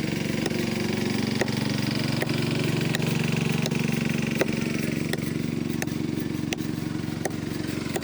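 Chainsaw engine running steadily, with a sharp tick about every three-quarters of a second.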